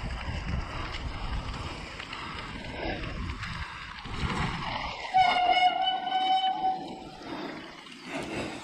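Mountain bike rolling down a dirt trail: wind on the microphone and tyre and frame rattle. About five seconds in, a steady high squeal lasts about a second and a half, typical of a disc brake squealing under braking.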